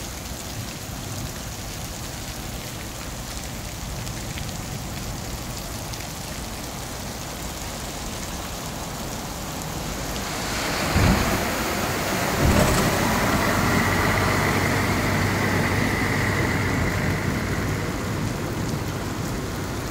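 Heavy rain falling on a flooded street, a steady hiss that grows louder about halfway through, with two brief low thumps a second and a half apart just after it swells.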